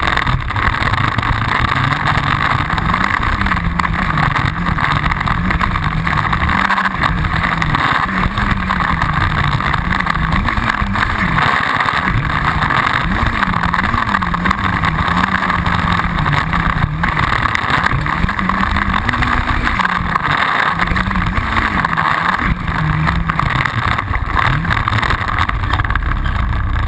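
Yamaha Banshee ATV's two-stroke twin-cylinder engine running under way, its pitch rising and falling with the throttle, dropping briefly a few times when the throttle is shut.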